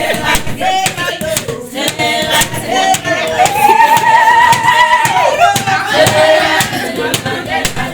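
Several voices singing, with one long held note in the middle, over a run of sharp percussive hits.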